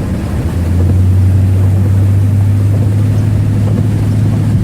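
Truck driving on a wet, flooded road, heard from inside the cab: a steady low drone of engine and tyres that swells about half a second in, over a hiss of water from the tyres.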